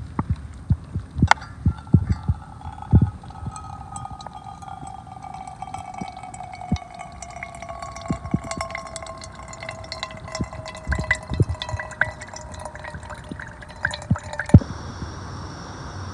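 Filtered water trickling and dripping from a Sawyer squeeze filter into a stainless steel pot, with a ringing tone that slowly drops in pitch as the pot fills, and scattered small clicks and knocks. Near the end it cuts suddenly to a steady hiss.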